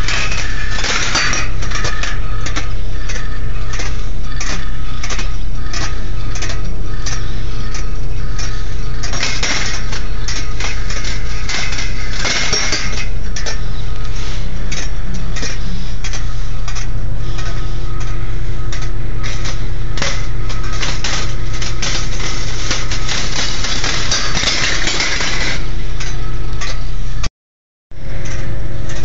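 Steel balls running through a stainless-steel wire rolling ball sculpture: many metallic clicks and clinks as the balls roll along the wire tracks and drop against the steel cups, over a steady low hum. The sound cuts out briefly near the end.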